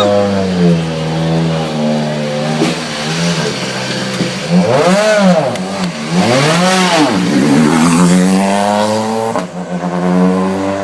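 Rally car engine idling and being revved in the service park. Two throttle blips about five and six and a half seconds in make its pitch rise and fall back, and it holds slightly higher revs near the end.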